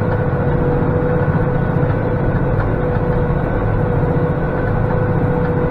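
Massey Ferguson 4707 tractor running steadily under load while driving a Kubota BV4160 round baler, a constant engine drone with a steady whine held over it.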